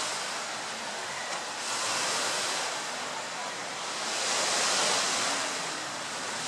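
Sea surf washing and wind, a steady rush that swells and fades about every two to three seconds.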